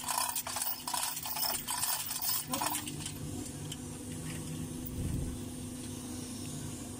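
Manual chain block's hand chain being pulled hand over hand, the steel links rattling and clinking in quick repeated strokes as the hoist lifts a truck transmission into place; the clinking stops a little under three seconds in, leaving a low steady hum.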